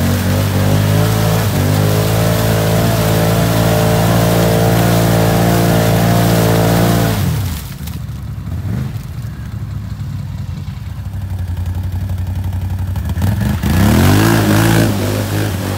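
Can-Am Outlander 650 ATV's Rotax V-twin engine held at high revs for about seven seconds as its wheels spin in deep mud, then dropping to a low, quieter running. Near the end it revs up again in a rising pull and holds steady.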